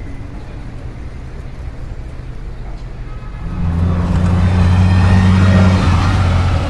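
Car engine running steadily, getting louder about three and a half seconds in as a low engine hum builds.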